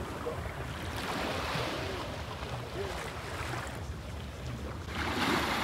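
Sea waves washing ashore, swelling twice, with wind buffeting the microphone.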